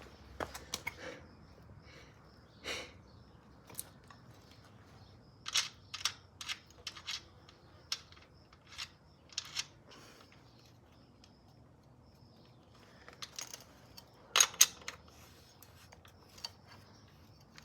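Scattered light metallic clicks and knocks, a few at a time with pauses between, from a bicycle wheel and frame being handled as the wheel is worked into the frame; the loudest pair comes about three-quarters of the way through.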